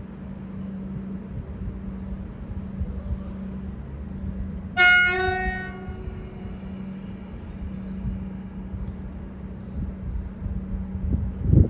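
Comeng electric train sounding one short blast of its low-note horn, about a second long, about five seconds in, over the steady hum of the departing train. A louder burst of rumbling comes near the end.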